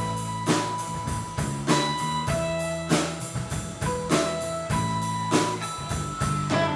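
Live country rock band playing an instrumental passage with no vocals. Electric guitars, bass guitar and drum kit keep a steady beat, with held high guitar notes ringing over it.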